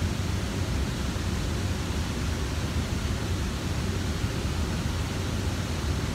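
Steady, unbroken rush of a waterfall: an even noise strongest in the low end.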